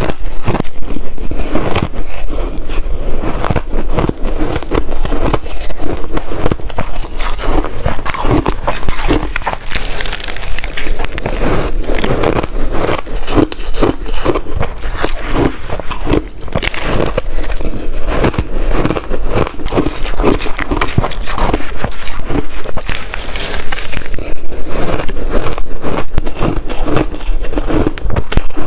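Close-miked chewing of blender-crushed ice, a dense, loud, unbroken run of crisp crunches.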